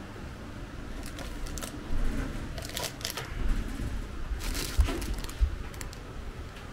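Scattered light crinkling and clicking of small items being handled, with two dull low knocks about five seconds in.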